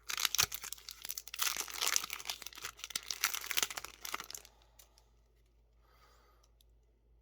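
Foil trading-card booster pack wrapper crinkling and tearing open, dense crackling that stops about four and a half seconds in.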